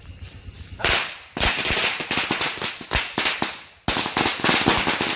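A string of firecrackers (an ametralladora) going off in a fast crackling chain of bangs. It starts about a second in and breaks off briefly twice.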